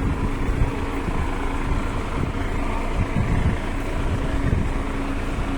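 Wind buffeting the microphone in a steady low rumble, over the constant hum of a vehicle engine running.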